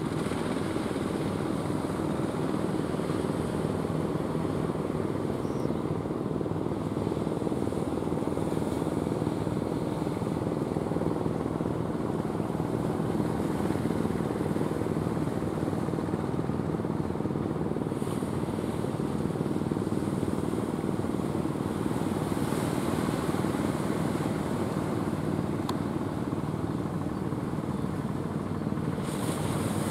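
Engine of a motorized outrigger fishing boat running steadily as it heads in from sea, over the wash of the sea.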